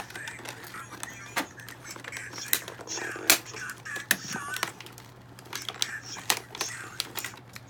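Plastic toy packaging being worked open: a run of irregular sharp clicks and crackles, the loudest a little after three seconds, with faint voices underneath.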